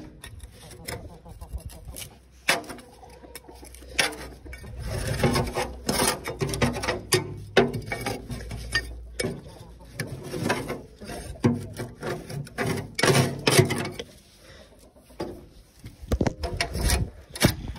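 Hand scraping in irregular rasping strokes, with sharp knocks in between: a scraper working on grimy tractor parts.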